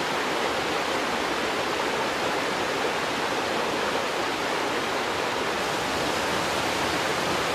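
Mountain stream cascading down a small rocky waterfall: a steady rush of water with no change in level.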